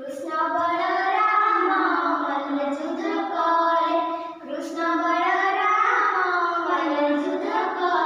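Young girls singing a children's song in Odia: two long phrases of drawn-out notes, with a short break about four seconds in.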